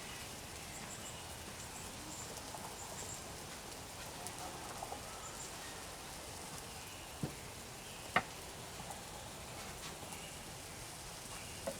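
Light rain falling steadily, an even soft patter, with a few faint high chirps in the first few seconds and a sharp click about eight seconds in.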